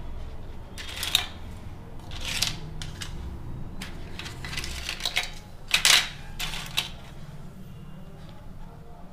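Crisp fried rice papads crackling and rustling as a hand lifts and handles them on a steel plate, in several short crunchy bursts, the loudest about six seconds in.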